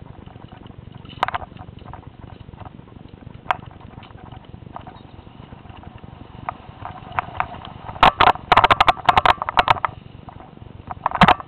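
Mountain bike riding over a leaf-covered forest trail: a steady low rumble with scattered knocks, then dense rattling and clattering from about eight seconds in.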